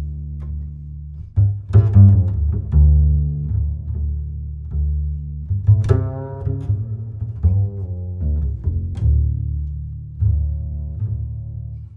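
Background music led by low strings, with plucked notes over sustained deep bowed notes.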